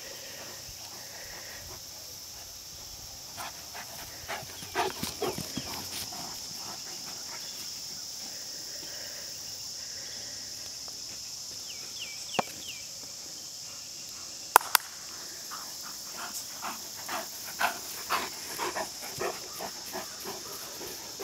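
Leonberger dogs at rough play on grass: scattered short, sharp play noises in clusters, with one loud sharp snap about two thirds of the way through, over a steady high-pitched background drone.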